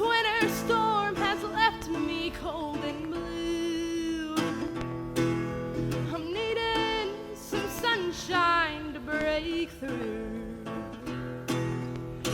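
A woman singing a slow, wavering melody over strummed acoustic guitar chords, in an old-western country style.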